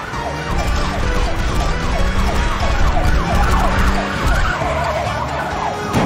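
Cartoon police car's siren sounding in rapid, repeated rising and falling sweeps, over a steady low rumble.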